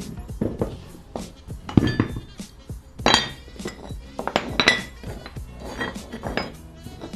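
Outro music with sharp, metallic-sounding percussive hits.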